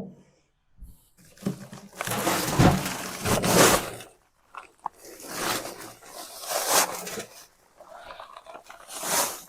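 Paper bag of dry concrete mix being handled and torn open, crinkling and crunching in several noisy bursts, the longest about two seconds in.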